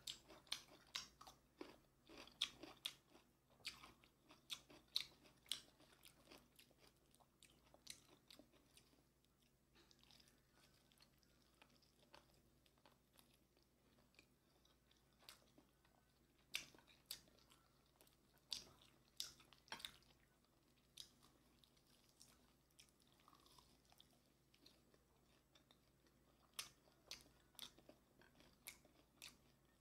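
Close-miked eating sounds: crisp crunching and chewing of sauce-coated Korean fried chicken and pickled radish cubes, in irregular clusters of bites with a quieter stretch in the middle.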